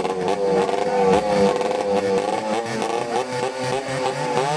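Engine of a long-tail racing boat running fast at idle with its pitch wavering slightly; near the end the revs dip and climb again.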